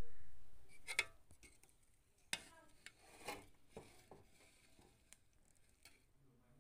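A spoon scraping and knocking against an aluminium cooking pot while cooked chicken pulao rice is stirred and turned over, in scattered clicks and scrapes. It opens with a sharp knock that dies away over about a second.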